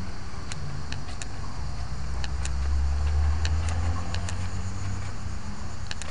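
Insects chirping in short, irregular high chirps over a steady low rumble that swells around the middle.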